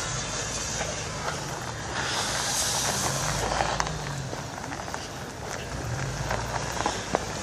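Car engines running slowly on an icy, snow-covered hill, with a tyre hiss that swells about two seconds in and scattered short crunches.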